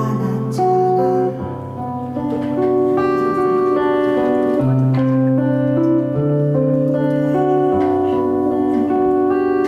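Acoustic guitar playing an instrumental passage of a song, its notes ringing on and changing every second or so, with no voice.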